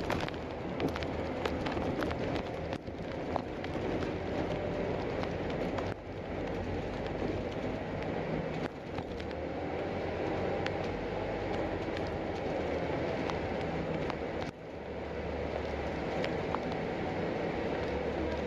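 Ride noise inside a moving bus: engine and tyre noise running steadily, with small rattles and clicks through the cabin and a few brief dips in level.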